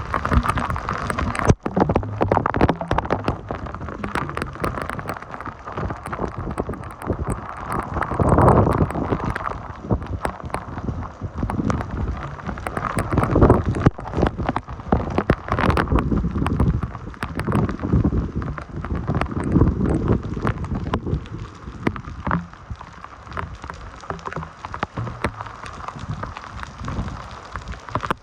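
Typhoon rain and wind: heavy rain pattering and splashing with a constant crackle of drops, and gusts of wind that swell and fade several times.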